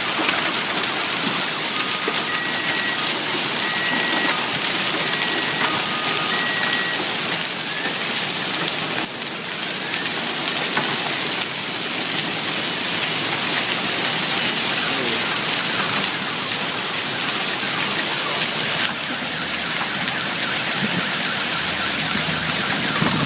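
Golf-ball-sized hail and heavy rain hitting hard surfaces: a dense, steady hiss of countless impacts.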